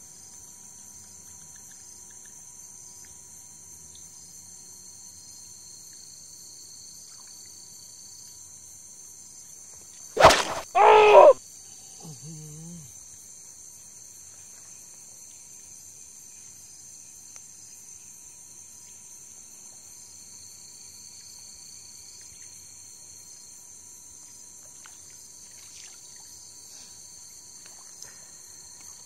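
Steady night chorus of crickets and other insects, a high-pitched drone with a faint regular pulsing. About ten seconds in, a sharp click is followed by a short, loud pitched call or shout lasting about a second.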